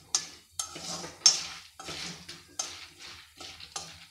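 A spatula stirring unpopped popcorn kernels in oil in a kadhai, a run of scraping, rattling strokes about two a second. The loudest stroke comes about a second in.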